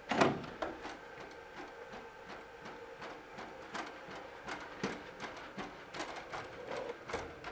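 Boston Dynamics Spot robot dog pushing a door open with its arm: a sharp knock just after the start, then irregular light clicks and taps from its legs, arm joints and the door as it moves through.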